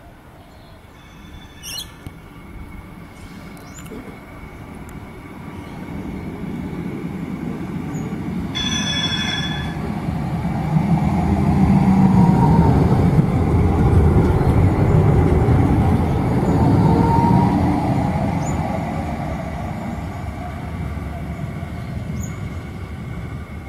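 Bombardier Flexity Classic light-rail tram approaching and running past close by. Its motor and wheel-on-rail noise builds to a peak about eleven seconds in and fades as it pulls away. A short horn sounds about nine seconds in.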